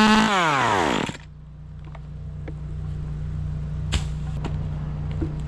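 Two-stroke chainsaw running at high revs, then dropping back to idle about a second in. It keeps idling with a steady low hum, with a few light knocks and clicks.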